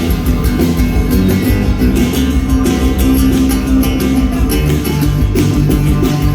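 Live band playing an instrumental passage of a rock song, with plucked guitar to the fore over a steady drum beat.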